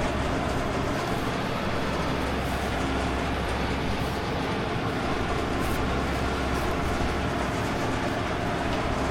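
Heavy engine running steadily at an even pace, a constant low hum under a broad mechanical noise.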